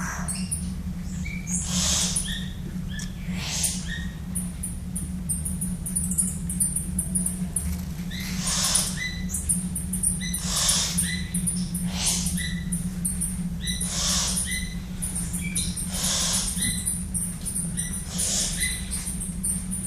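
Tropical birds calling: a loud, noisy call repeats about every two seconds over continuous high-pitched chirping, with a steady low hum underneath.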